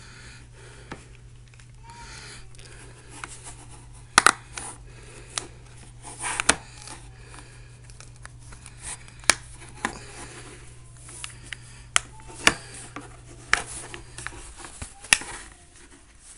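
Scattered plastic clicks and scrapes from fingers prying the plastic battery cover off a T-Mobile G2X (LG Optimus 2X) phone, taking some effort. A faint steady hum underneath stops near the end.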